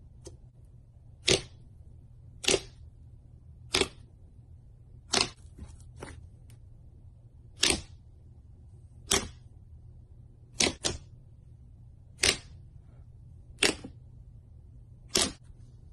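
Thick slime pressed and poked with fingertips, giving a sharp short pop about every second and a half, twice in quick succession once.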